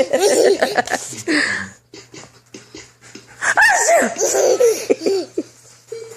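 Baby laughing in two bouts of giggles and belly laughs, the second starting about three and a half seconds in, with breathy gasps between.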